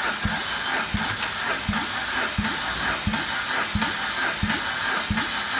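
Mitsubishi 4A92 1.6-litre four-cylinder engine cranking on its starter motor without firing, for a compression test of the second cylinder. There is a steady starter whine, and a deep, even pulse comes about every three-quarters of a second as the engine turns over against compression.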